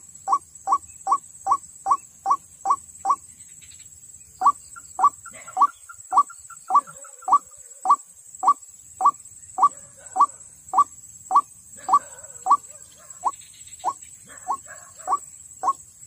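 White-breasted waterhen call played as a lure: a steady series of short, sharp notes, about two to three a second, with a brief pause about three seconds in, and some looser overlapping calls now and then. A steady high hum runs underneath.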